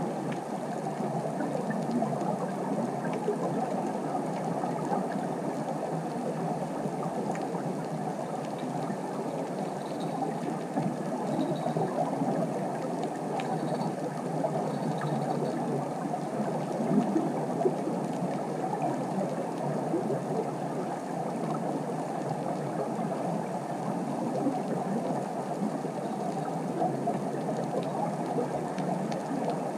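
Steady, muffled underwater ambient noise recorded at a sandy seabed, with a few faint clicks.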